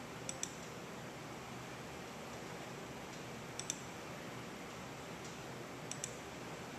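Computer mouse button clicks: three clicks about three seconds apart, each a quick pair of ticks, over a steady background hiss.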